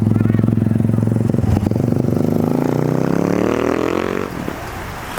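A motor engine running steadily, then rising in pitch as it revs up and fading away about four seconds in, leaving a rushing noise.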